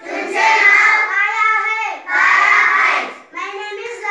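A group of young children chanting words aloud together in a sing-song recitation: two long phrases, then a shorter, quieter one near the end.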